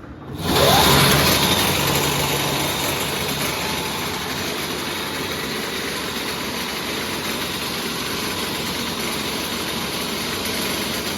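An electric go-kart's motor spinning up with a quickly rising whine, then running steadily with a loud, dense drivetrain noise.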